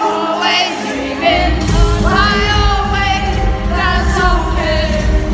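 Live pop-rock band playing with a singer's voice over it; the bass and drums come in heavily a little over a second in.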